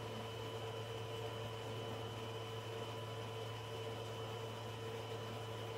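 Steady low hum and hiss from the cooling fans of a powered-on Tronxy XY2 Pro 3D printer standing idle, with a few faint steady tones and no motor movement.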